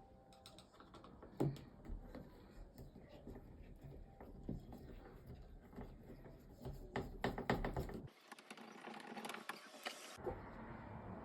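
Scattered light clicks and taps of a flathead screwdriver and plastic dashboard trim being handled as a car's light switch panel is screwed back in, with a quick run of clicks about seven seconds in.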